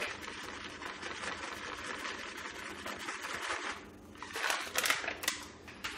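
Plastic pouch of bacon crumbles crinkling as it is shaken out over a pot, a steady rustle with a short lull about four seconds in.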